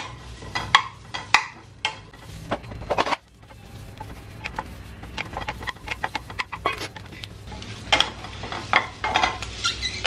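Wooden spatula stirring in a dry nonstick wok, scraping the pan and knocking whole tomatoes, green chillies and garlic cloves about as they roast without oil: a run of irregular clicks and taps.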